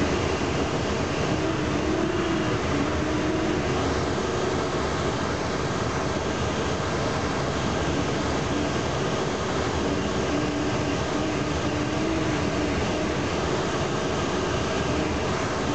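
Air rushing past a Duo Discus glider's canopy in a fast, low pass, a steady hiss in the cockpit, with a faint wavering tone coming and going.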